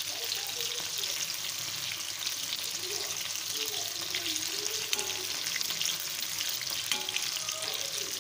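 Masala-coated nethili (anchovies) deep-frying in hot oil in a kadai: a steady crackling sizzle, with a perforated metal skimmer stirring and turning the fish in the oil.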